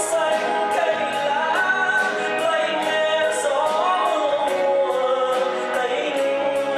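A live band plays a Vietnamese ballad while a male singer sings the melody, his voice gliding between held notes. A steady ticking beat, about three ticks a second, runs above the band.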